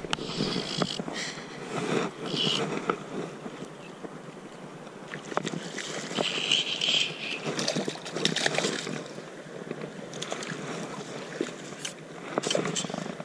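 Creek water rushing and sloshing around a wader, with a hooked trout splashing at the surface in louder bursts from about six to nine seconds in.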